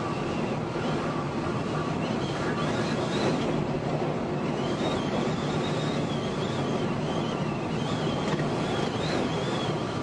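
Steady road and wind noise inside a moving car's cabin at highway speed in strong wind, with a faint high whistle that wavers up and down in pitch.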